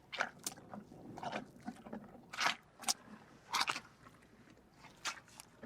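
Irregular crunching, as of an animal chewing food: about eight sharp crunches spread unevenly.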